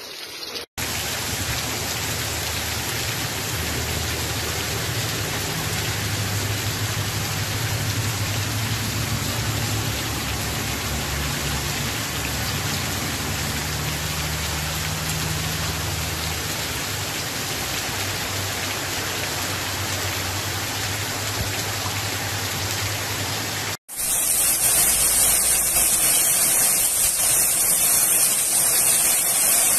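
Torrential rain pouring steadily, with a low hum beneath it. About 24 s in it cuts abruptly to a louder, hissier rush of rain.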